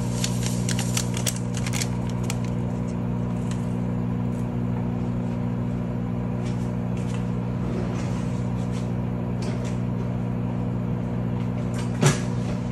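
Microwave oven running with a steady electrical hum. Light rustling ticks in the first couple of seconds as a packet of vanilla sugar is shaken out into the pan, and a single knock near the end.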